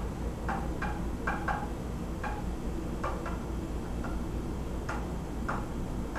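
Light, sharp clicking knocks, about nine of them, unevenly spaced, over a steady low hum; their source is unexplained.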